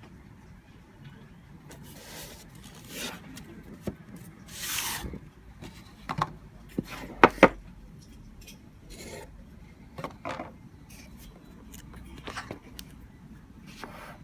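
A product box and its packaging being handled and opened by hand: irregular bursts of rubbing and scraping with scattered sharp clicks, the two loudest clicks close together about seven seconds in.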